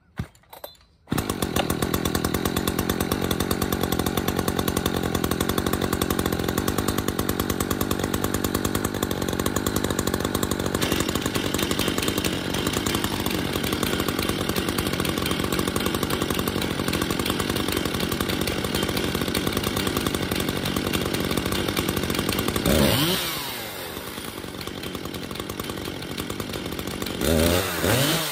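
Stihl MS440 Magnum and Echo CS-590 two-stroke chainsaws idling steadily, cutting in about a second in, while being warmed up. Near the end they are revved up and back down twice.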